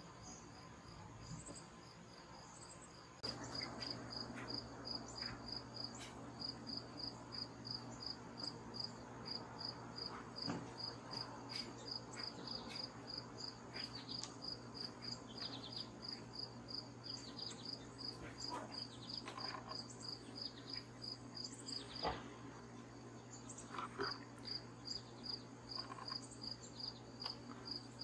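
Crickets chirping in a steady, even rhythm of high chirps, a few a second. A low steady hum comes in about three seconds in.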